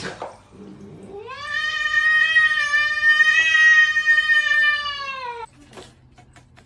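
A cat's long, drawn-out yowl: one steady call of about four seconds that rises in pitch as it begins and falls as it ends.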